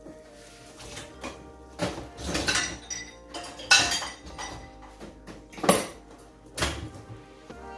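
Kitchen utensils knocking and clinking against dishes or a pan, about five irregular strikes with a ringing, metallic edge, the loudest a little under four seconds in, over steady background music.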